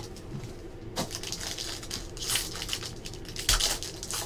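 Foil trading-card pack crinkling in irregular bursts as it is handled and torn open, with the loudest crinkle and a soft thump about three and a half seconds in.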